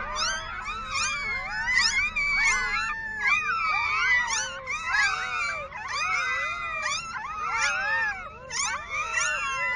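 Several animals crying at once: many overlapping high squeals that keep sliding up and down in pitch.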